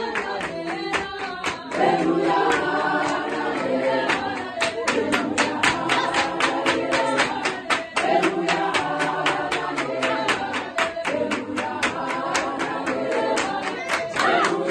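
Church congregation singing a hymn together unaccompanied, with many voices, and handclaps keeping a steady beat.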